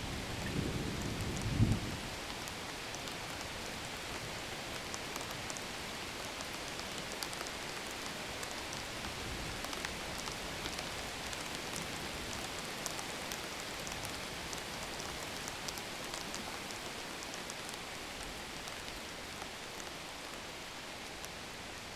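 Steady rain falling, with scattered drop ticks. The tail of a low thunder rumble dies away about two seconds in.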